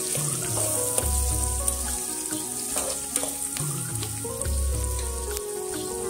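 Sliced onions sizzling in hot oil in a metal pot, a steel ladle stirring them with occasional clinks and scrapes against the pot. Background music plays underneath.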